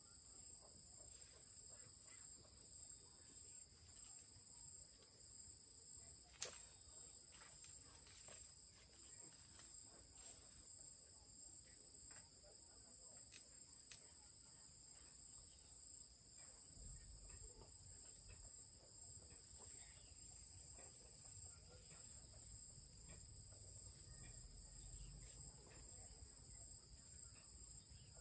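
Steady, high-pitched insect chorus of crickets or similar insects. A single sharp click comes about six seconds in, a few fainter ticks follow, and a low rumble sets in during the second half.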